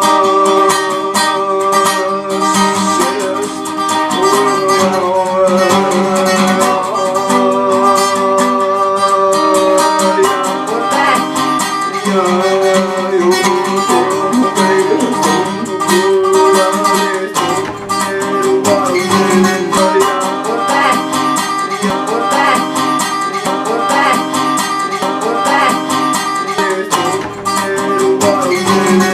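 Music led by a plucked acoustic guitar, playing steadily throughout.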